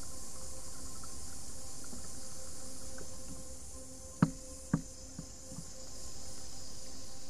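Steady high insect chorus from the creekside trees. A little past the middle come two sharp knocks half a second apart, then two fainter ones.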